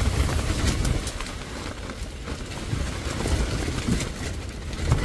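Strong wind buffeting a car, heard from inside as a low rumble with rain, over the rustle of a nylon sleeping bag being pulled around someone.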